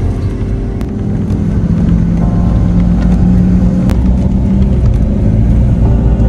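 Inside a moving car on a highway: steady low road and engine rumble in the cabin.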